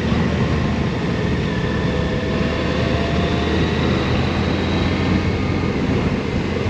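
A motorcycle engine running steadily on the move, under a dense, even rush of wind and road noise with a faint steady whine above it.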